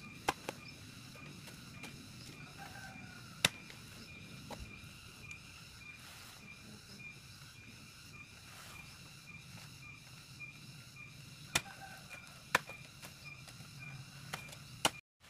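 A hand hoe chopping into garden soil: a handful of sharp, irregularly spaced strikes as the blade bites into the earth, with soft scraping of soil between them.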